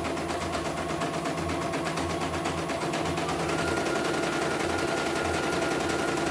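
CNY E900 computerized embroidery machine stitching a design into hooped fabric: a steady motor whir with fast, even needle strokes, its whine stepping up slightly in pitch about three seconds in.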